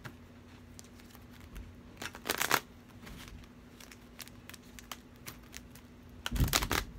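A deck of Archangel Michael oracle cards being shuffled by hand: two short bursts of shuffling, one about two seconds in and one near the end, with faint card ticks between them.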